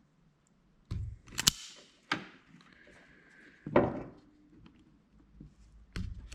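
Wire stripper being worked on electrical wire: several sharp clicks and snaps spread over a few seconds as the jaws clamp and pull the insulation off.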